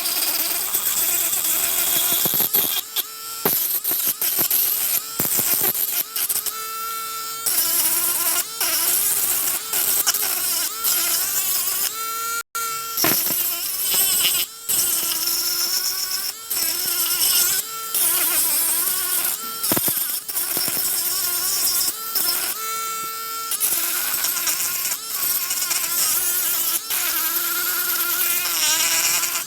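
Mini electric sanding and polishing machine running, with a steady whine that dips and rises slightly in pitch as it sands hardened body filler on a miniature car body, over a gritty hiss. The sound breaks off briefly many times.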